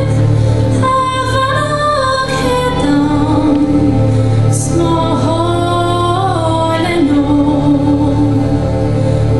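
A young female soloist singing a slow melody with long held notes that glide between pitches, over a low, steady accompaniment.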